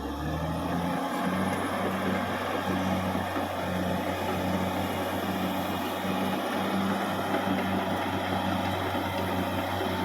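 Caterpillar D6R XL bulldozer's diesel engine running steadily: a low, even drone with a dense mechanical rush over it.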